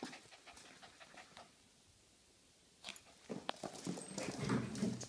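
Jack Russell terriers playing: light clicks and scuffles at first, then from about three seconds in a louder burst of scuffling and panting.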